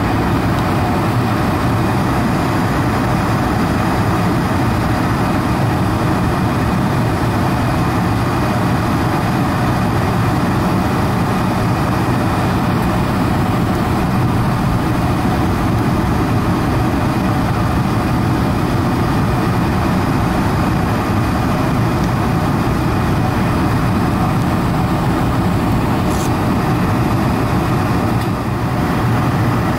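Steady cabin noise of a Boeing 747-400 descending on approach: the drone of its GE CF6-80C2 turbofan engines mixed with airflow rush, heard from a window seat inside the cabin.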